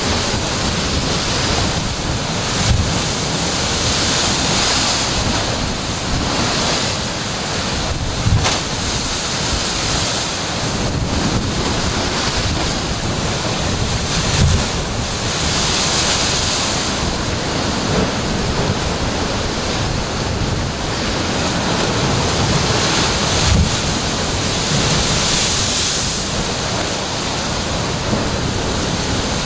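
Heavy surf breaking into a rocky sea inlet, with seawater pouring back off the rock ledges in a continuous rush. The rush swells every several seconds as each wave comes in. Wind buffets the microphone, with a few low thumps.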